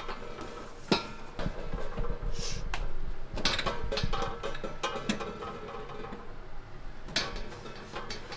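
Kitchen clatter: dishes and utensils knocking, with sharp strikes about a second in, midway and near the end, over faint background music.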